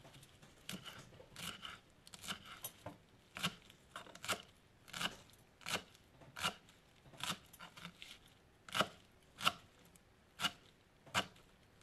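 Knife chopping fresh cilantro on a wooden cutting board: slow, even cuts, a little more than one a second.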